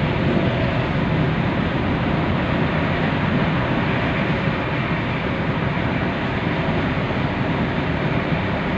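Steady road and tyre noise of a car travelling at freeway speed, heard from inside the cabin.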